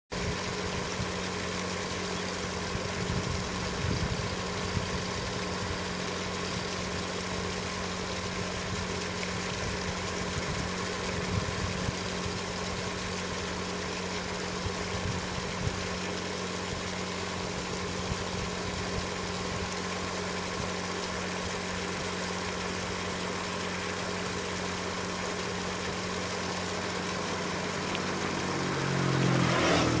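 Steady, low mechanical hum like an idling engine. Near the end a louder sound swells up, its pitch falling, like a vehicle passing.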